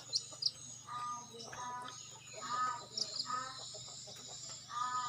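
Bird-lure calls: short calls repeated about once a second, with small-bird chirps in between and a steady high buzz behind.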